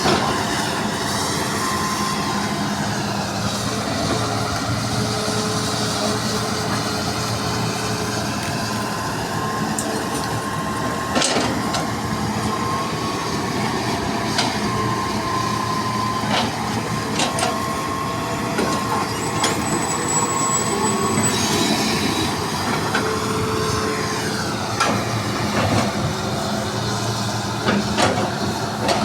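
Hydraulic excavator working soil: engine running steadily under a high, level hydraulic whine, with sharp metallic knocks and clanks several times as the machine moves and works.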